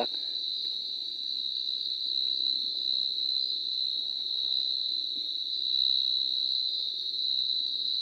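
Night insects, crickets by their sound, trilling in a steady, unbroken high-pitched chorus.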